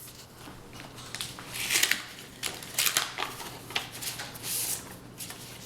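Paper rustling and crinkling in irregular bursts as a birthday card is handled and opened from its envelope.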